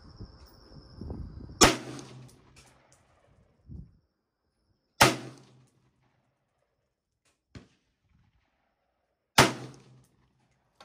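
Three rifle shots from a 20-inch AR-15 chambered in .223/5.56, fired about three to four seconds apart, each a sharp crack that trails off briefly.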